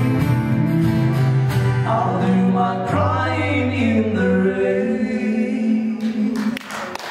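Live band playing the end of a song: two male voices singing a long held final line in close harmony over strummed acoustic guitars, bass and drums. The music rings out about six seconds in as audience applause begins.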